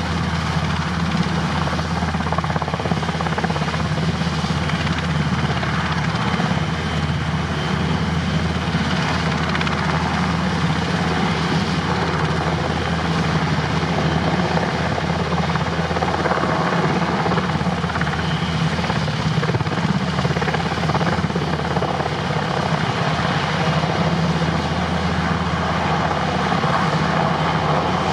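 NH90 twin-engine helicopter hovering just above the ground and slowly climbing away, its rotors and turbines running in a loud, steady, unchanging sound with a strong low rotor beat.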